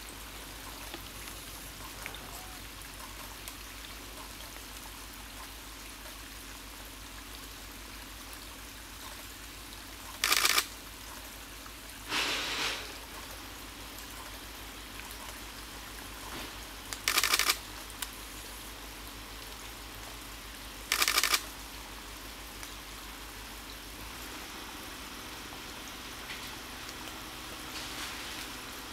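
A small trickle of water running over mossy rocks, a steady soft hiss. Four short loud bursts of noise, each about half a second, break in across the middle stretch.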